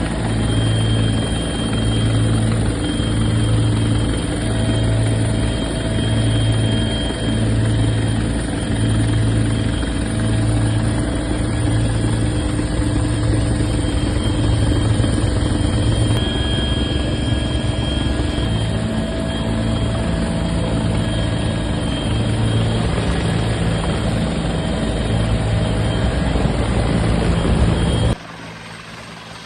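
Bell 412 twin-turbine helicopter running, a steady rotor and turbine roar with a slow pulsing in its low hum; the sound drops off sharply near the end.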